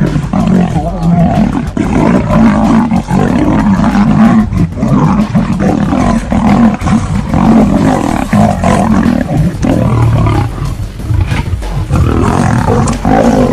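A lion and a tiger fighting: continuous loud growling, snarling and roaring with no pauses.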